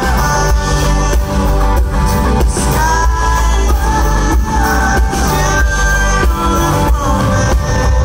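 Live rock band playing loud: a sung lead vocal over acoustic and electric guitars, bass and a steady drum beat.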